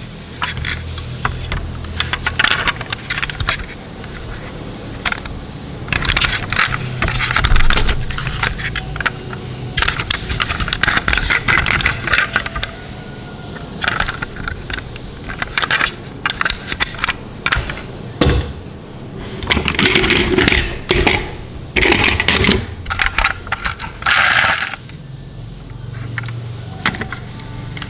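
Die-cast toy cars handled in the hand: repeated small clicks, scrapes and metal-and-plastic clatter as a door is swung open and the cars are turned over, with some louder bursts of handling noise.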